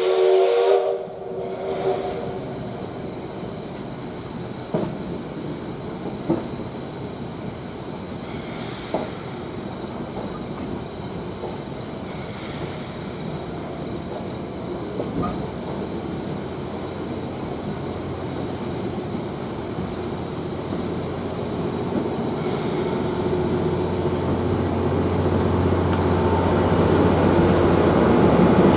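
The C57 steam locomotive's whistle gives a short blast at the start, heard from inside a trailing passenger coach. Then the train rolls slowly backwards with occasional wheel clicks and several bursts of steam hiss, growing louder toward the end. Insects chirp faintly underneath.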